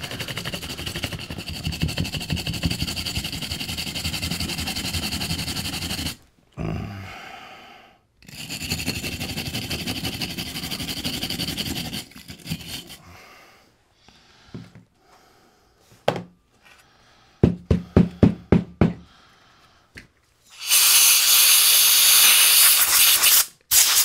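A bristle brush scrubbing a corroded electrical connector with rubbing alcohol: fast back-and-forth strokes in two spells. They are followed by a few sharp knocks and, near the end, a loud steady hiss lasting about three seconds.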